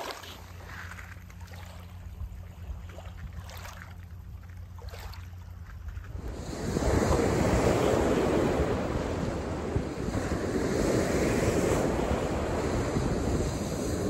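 Faint water lapping over a pebble beach with a low wind rumble. About six seconds in it changes abruptly to louder, steady surf breaking on the shore, with wind buffeting the microphone.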